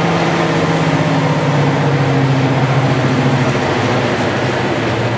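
Class 55 Deltic locomotive's Napier Deltic two-stroke diesel engines, heard from inside the driving cab as a steady drone over running noise, with the engine note slowly falling in pitch as the locomotive rolls on.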